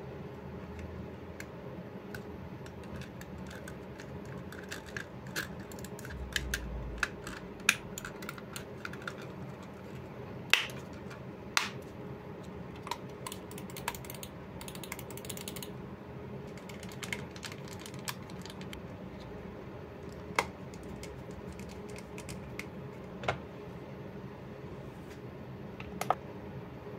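Attack Shark X6 gaming mouse being handled: irregular plastic clicks and small crackles, with a few louder sharp clicks and two denser patches of crackling.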